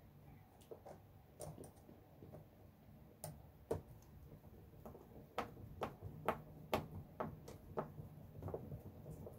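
Hex driver tightening a small screw on an RC crawler's rear-axle suspension link: faint, irregular small clicks and ticks of the tool and parts, one or two a second. A faint low hum runs underneath.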